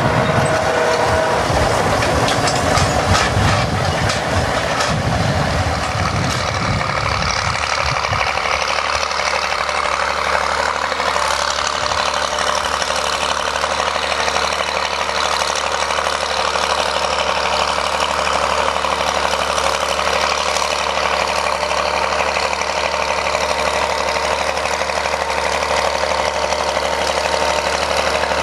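International Harvester BTD20 crawler tractor's diesel engine working under load as it pulls a disc harrow, with the clatter of its steel tracks. It rumbles unevenly for the first several seconds, then settles to a steady engine note.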